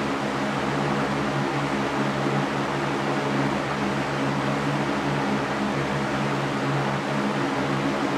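Electric fan running steadily: an even rush of air over a low motor hum with a few steady tones.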